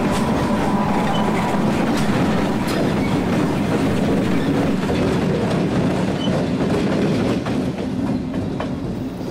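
A string of diesel-electric locomotives, with no cars behind them, rolling past. Their steel wheels click over the rail joints over a steady rumble, which eases a little near the end as the last locomotive goes by.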